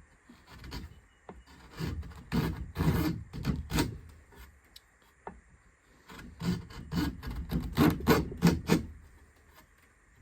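Rubbing strokes on a sharpening stone, in two runs of quick back-and-forth strokes, the first about two seconds in and the second about six seconds in.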